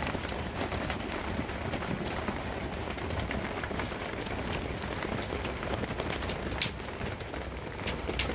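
Steady rain falling, with a few sharp close ticks; the loudest comes about six and a half seconds in, another near the end.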